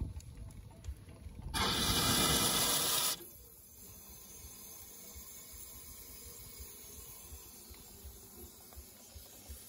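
A short blast of steam hissing hard for about a second and a half from a valve on a half-scale Case steam traction engine, then cutting off abruptly, as water is being fed into the boiler.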